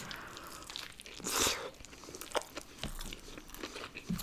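Faint close-up chewing and crunching of fast food, with scattered soft mouth clicks and one louder noisy crunch about a second and a half in.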